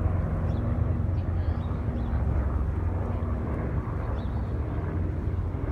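Helicopter flying overhead: a steady low drone with a constant hum.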